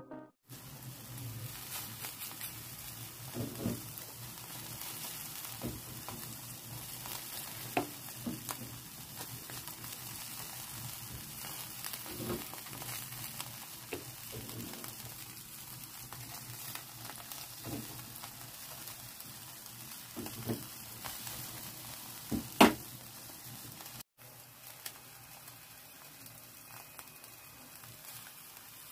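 Chicken fillets sizzling on an electric grill's wire rack, a steady sizzle with scattered sharp pops and crackles.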